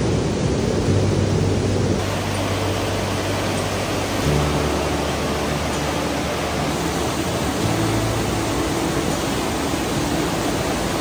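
Rapids of a fast mountain creek: a steady rush of whitewater tumbling over boulders.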